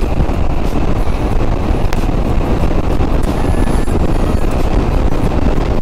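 Yamaha XMAX 300 scooter riding at speed: a steady rush of wind over the camera microphone, mixed with engine and road noise.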